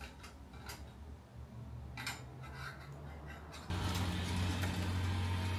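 A few light clicks of clothes hangers being hooked onto a drying pole. About two-thirds of the way through this gives way abruptly to a steady low hum of outdoor ambience with distant traffic.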